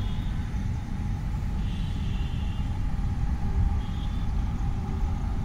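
Low rumble of wind buffeting the microphone, mixed with distant city traffic, over a faint steady hum.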